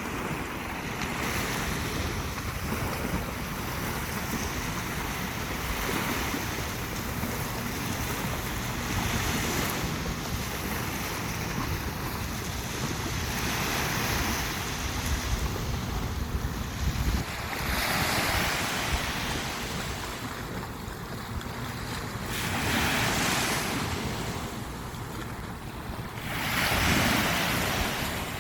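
Ocean waves breaking and washing up on a beach, one surge after another every few seconds, the last one the loudest, with wind buffeting the microphone.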